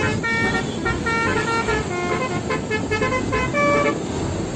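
An electronic melody of short, horn-like synthesized notes stepping up and down in pitch, over a steady rushing noise.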